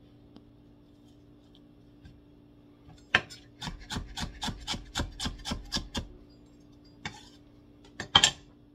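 Chef's knife slicing fresh ginger root on a bamboo cutting board: a sharp first cut about three seconds in, then about a dozen quick, even strokes, each knocking through onto the wood. Near the end come a couple of louder knocks on the board.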